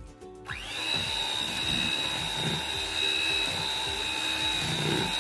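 Electric hand mixer switching on about half a second in, its motor rising quickly to a steady high whine as the beaters whip cream cheese and butter frosting in a plastic bowl.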